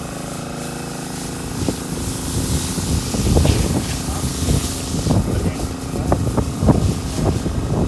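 Pressure washer running, its water spray hissing as it washes the surface cement off freshly poured exposed-aggregate concrete to bare the stones.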